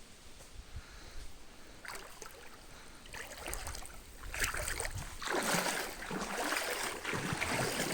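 Water splashing and sloshing as someone wades through a stream. It starts faint and becomes louder and more continuous from about three seconds in.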